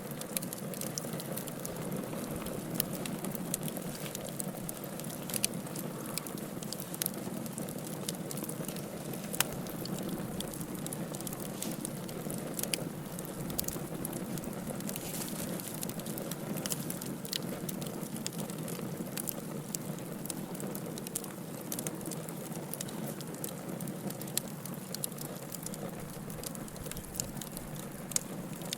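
Campfire burning: a steady low rush of flame, with frequent sharp crackles and pops scattered irregularly through it.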